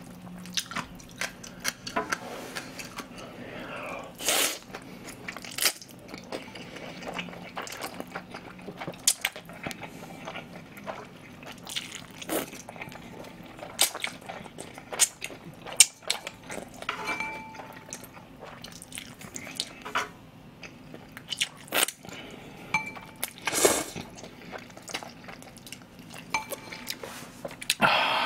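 Close-miked eating of jjolmyeon, chewy cold noodles with a crisp fried topping: slurping and wet chewing, broken by many short crunches.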